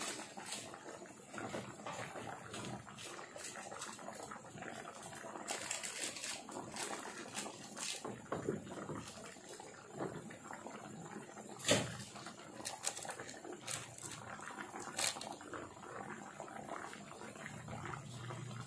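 Beef-rib rendang in a thick coconut-milk gravy simmering in a frying pan, bubbling with irregular pops and spits, one sharper pop about two-thirds of the way in.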